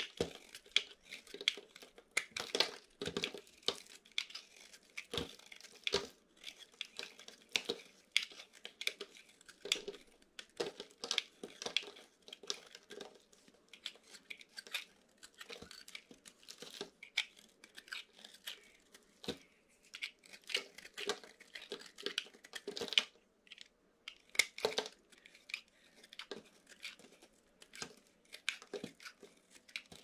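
Snap-off utility knife blade shaving thin flakes off a dry bar of soap: a long irregular run of short, crunchy scrapes, about one or two a second.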